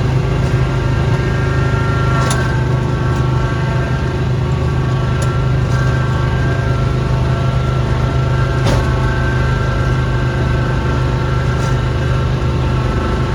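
Small gasoline engine of a snow-clearing machine running steadily at constant speed, with a few sharp clicks over it, the clearest about two and nine seconds in.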